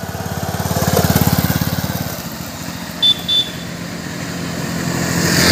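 Motorcycle engine running as the bike rides past close by, loudest about a second in, then fading as it rides away. Two short high-pitched beeps sound about three seconds in.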